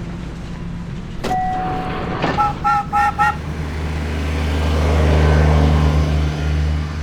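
A car horn sounding four quick short toots, after a click and a single brief beep. Then a vehicle's engine swells to a steady low drone.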